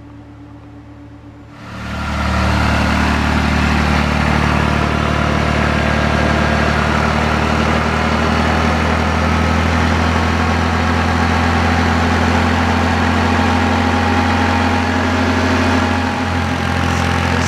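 Kubota B7100 tractor's three-cylinder diesel engine running steadily at PTO speed, turning a NorthStar PTO generator under charging load. It follows a quieter hum for the first second or two. The engine is working hard; it is described as kind of struggling at this load.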